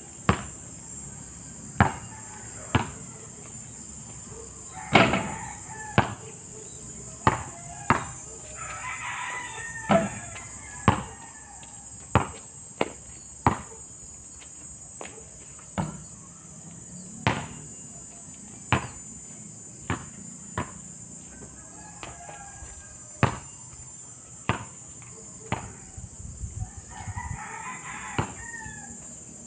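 A basketball bouncing on an asphalt court, in irregular runs of dribbles. A rooster crows twice, once about a third of the way in and again near the end, over a steady high buzz of insects.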